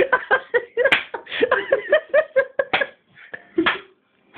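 A group of people laughing hard in rapid, repeated bursts, thinning out about three seconds in. There is a single sharp click about a second in.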